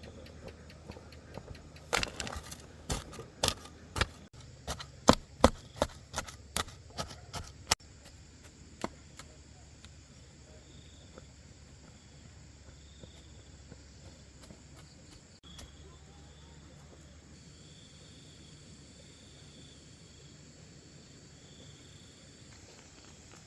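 A quick, irregular series of sharp knocks or strikes, about two a second, lasting about six seconds. After that only a quiet outdoor background remains, with faint insects chirping.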